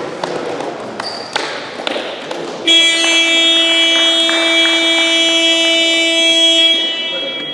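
Basketball scoreboard buzzer sounding one loud, steady tone for about four seconds, starting suddenly a few seconds in: the buzzer for the end of the game. Before it, sharp knocks of play on the court.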